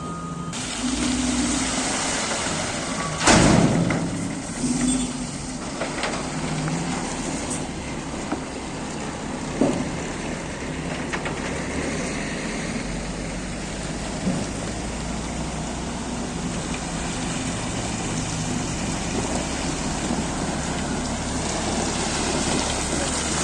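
Cat 140GC motor grader at work: its diesel engine runs steadily under a constant rushing noise, with one loud knock a little over three seconds in and smaller knocks later.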